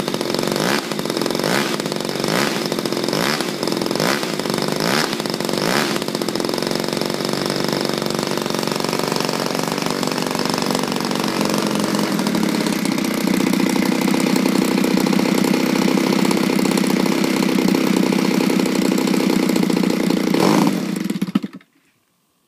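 XYZ 20cc two-stroke gas engine of a model Corsair running with its propeller turning. For the first few seconds it revs up and down about twice a second, then it runs steadily, louder from about halfway, and cuts off suddenly near the end.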